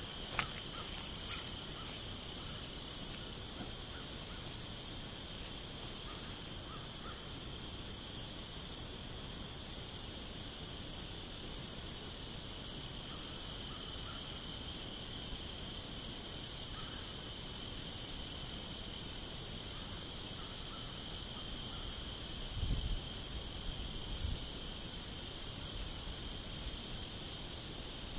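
Steady chorus of crickets and other field insects: a continuous high trill over a lower steady buzz, with short chirps repeating several times a second from about a third of the way in. A couple of sharp clicks sound about a second in.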